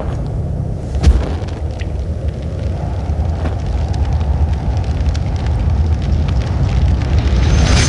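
Open flames burning in a shallow metal tray: a steady low rumble with scattered crackles. There is one sharp, loud whoosh about a second in as the fire is lit.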